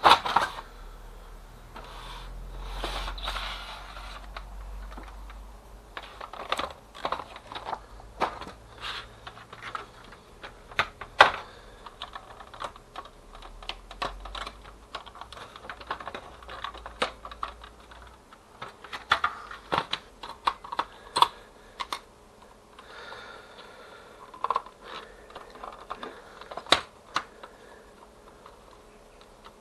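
Plastic clicks, knocks and rattles from a Kyocera FS-1320D laser printer's paper cassette being handled, with a sliding rasp in the first few seconds as the cassette is drawn out, then irregular snaps as the separation roller is worked loose from its mount.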